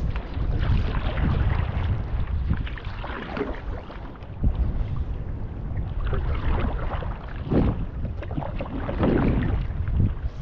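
Stand-up paddle strokes splashing and pulling through the water, a stroke every couple of seconds, over steady wind rumble on the microphone.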